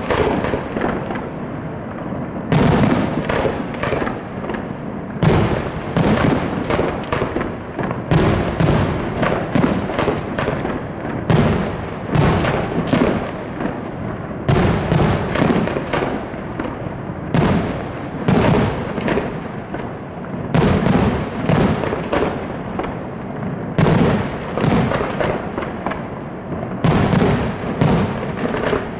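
Fireworks display: a continuous barrage of aerial shell bursts. Heavy volleys of rapid bangs come about every three seconds, with dense crackling in between and no pause.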